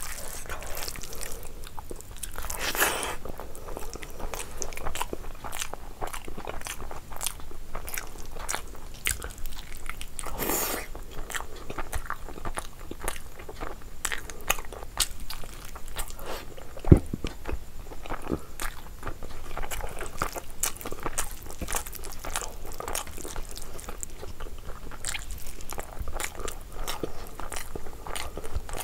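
A person chewing and biting mouthfuls of rice and curry eaten by hand, with wet mouth clicks and smacks throughout. One sharp click about halfway through stands out as the loudest sound.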